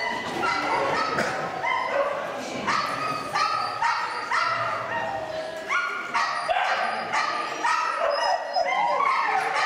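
Small dog yapping over and over in short, high-pitched barks, about two a second.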